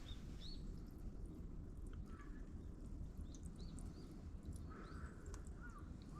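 Faint bird calls: short arched chirps, a few high ones early and lower ones near the end, over a low steady outdoor rumble.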